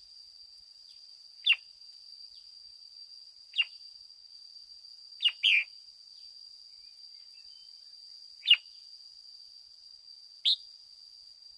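Red-whiskered bulbul giving short, sharp calls that drop steeply in pitch, six in all, two in quick succession near the middle, over a steady faint high-pitched tone.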